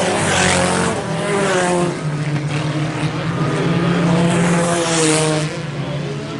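IMCA Sport Compact race cars with four-cylinder engines racing at full throttle, several engines at once, their pitch rising and falling through the corners. Two louder passes come about half a second and five seconds in.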